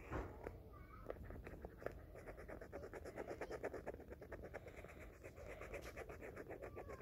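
Paint marker tip scribbling on paper: quick back-and-forth scratchy strokes, several a second, as a small shape is filled in with black.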